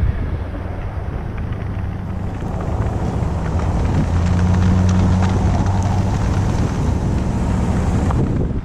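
Truck engine and drive noise heard while driving slowly on snowy roads: a steady low drone that grows a little louder around the middle.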